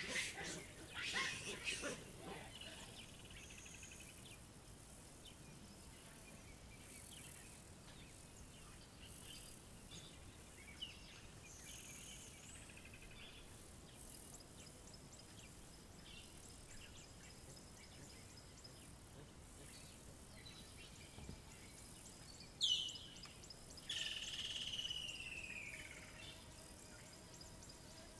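African savanna ambience: faint insects and distant birds. It opens with the tail of loud baboon screams in the first two seconds. Near the end, a woodland kingfisher gives a sharp note followed by a long descending trill.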